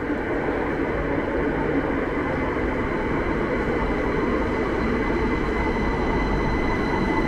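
Heathrow Express Class 387 electric train pulling into a tunnel platform. The wheels and motors make a loud, steady rumble, and a high whine grows clearer toward the end.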